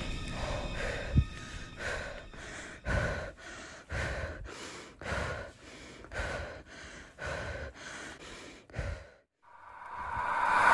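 A man breathing hard and fast, about two breaths a second. The breathing stops short about nine seconds in, and a rising swell of noise follows near the end.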